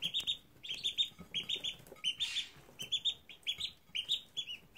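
Ducklings peeping: short, high cheeps repeated in quick runs of two to four, several a second.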